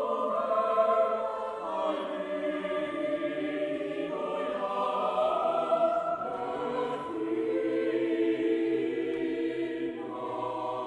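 A choir singing slow, sustained chords, each chord held for about two seconds before moving to the next.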